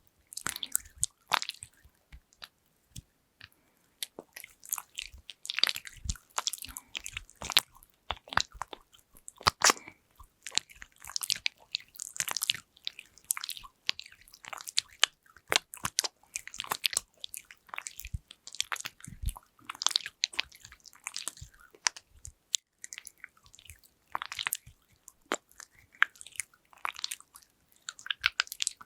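Close-miked ASMR handling sounds: dense, irregular taps, clicks and short crackles of fingers on plastic lids and containers.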